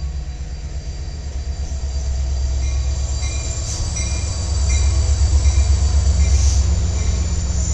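Diesel freight locomotives passing close at the head of a double-stack intermodal train: a heavy, steady low engine rumble that grows louder about halfway through as the locomotives go by. Faint high-pitched wheel squeal sounds over it.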